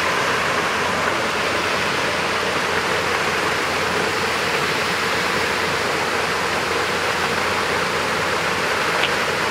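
Steady rush of running or splashing water, an even hiss that does not let up.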